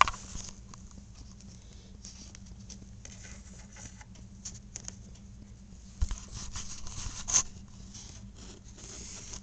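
Homemade Rube Goldberg marble run in motion: a marble rolling along the track with scattered light clicks, and louder knocks about six seconds in and again about seven and a half seconds in.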